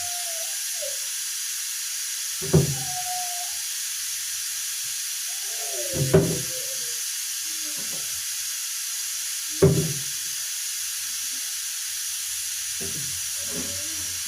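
Steady hiss with three sharp knocks, about three and a half seconds apart, as things are set down in the kitchen.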